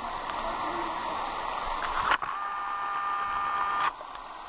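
Steady rain falling on a pond and the surrounding foliage. About two seconds in, a click is followed by a steady hum of several tones lasting nearly two seconds, and then the rain alone returns.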